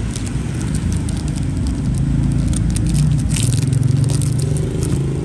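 Rapid small clicks and scrapes of a metal Zippo lighter being handled, densest over the first four seconds, over a steady low rumble of traffic.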